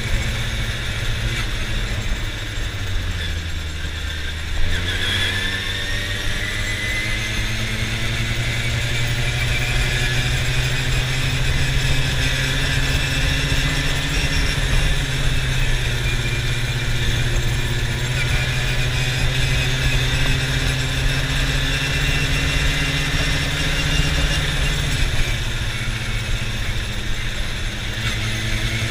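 Quad bike engine running while being ridden on a paved road. It eases off about three seconds in, then picks up with a rising pitch and a high whine that rises with it, holds a steady speed, and eases off again near the end.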